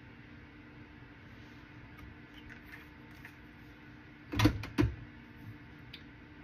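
Two sharp knocks about half a second apart, a little over four seconds in, as makeup containers are handled and set down, with a few lighter clicks before them, over a faint steady hum.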